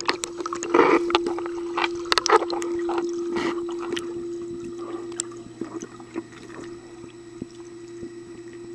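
Pool water sloshing and splashing close to the microphone as the camera dips at and below the waterline beside a wading dog, over a steady hum. The splashing is busiest in the first few seconds and then eases off.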